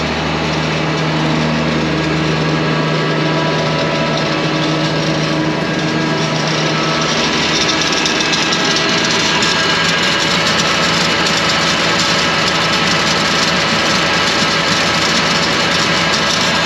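Tractor engine running steadily under load, driving a slurry mixer that stirs a slurry pit.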